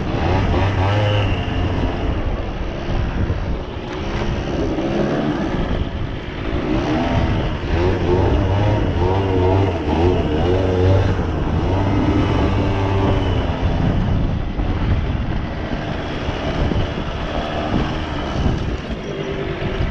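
Suzuki LT80 ATV's small two-stroke single-cylinder engine running, its pitch repeatedly rising and falling as the throttle is worked.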